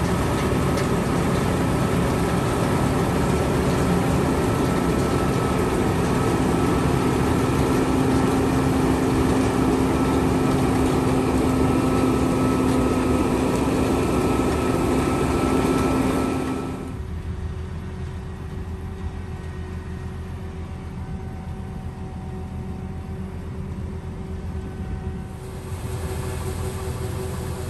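John Deere 9510 combine running steadily under load as it harvests oats: a loud diesel engine and threshing drone with a held whine. About 17 seconds in the sound drops suddenly to a quieter, lower hum.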